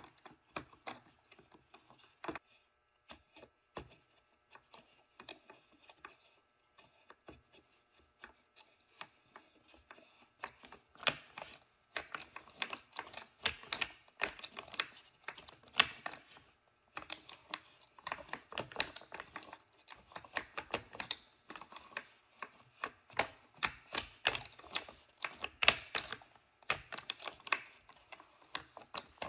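Plywood spur gears clacking as their wooden teeth mesh and turn: scattered clicks at first, then a dense, irregular clatter from about ten seconds in.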